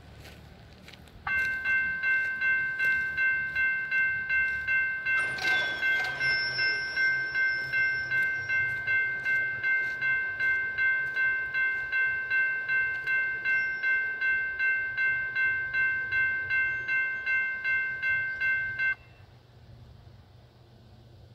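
NEG electronic railroad crossing bell ringing in even strikes, about two and a half a second, as the crossing activates. It starts about a second in and cuts off suddenly near the end, once the gate arms are down.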